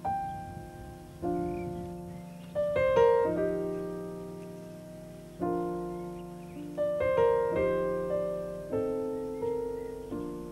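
Slow solo piano music: chords and single notes are struck one after another and each is left to ring and fade.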